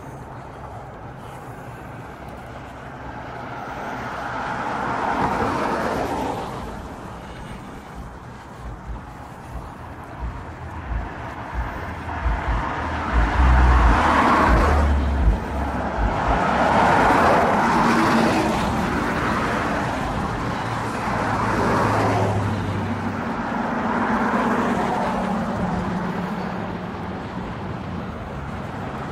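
Road traffic on a multi-lane road: cars passing one after another, each swelling and fading away. A few low thumps come about halfway through.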